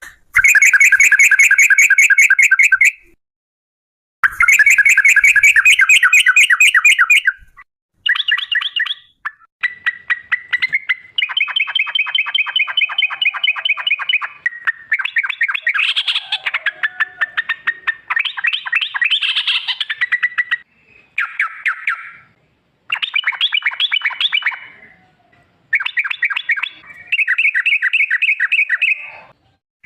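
Yellow-vented bulbul (trucuk) singing long, fast rattling trills, its "ropel" song. It comes in bouts of rapidly repeated notes, each one to several seconds long, separated by short pauses, with a longer unbroken run through the middle.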